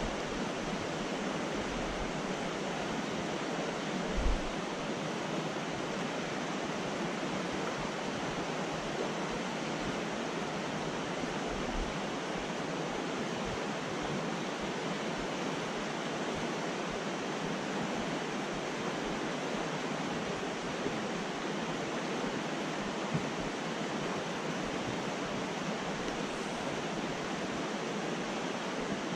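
Fast-flowing mountain trout stream rushing steadily over a shallow rocky riffle. There is one brief low thump about four seconds in.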